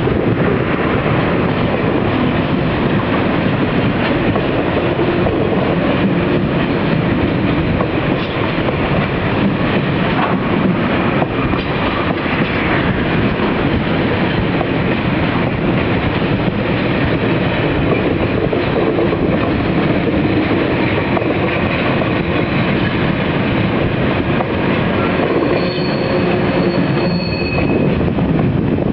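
Freight train's loaded container flat wagons rolling past close by: steady rumble and rattle of steel wheels on rail, with a faint high wheel squeal near the end.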